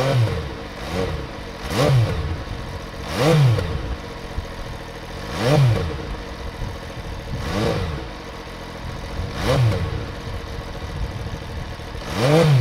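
MV Agusta F3 800's inline three-cylinder engine idling and revved in about eight short throttle blips, each rising and falling in pitch. The ExUp exhaust valve has failed and no longer opens and closes properly.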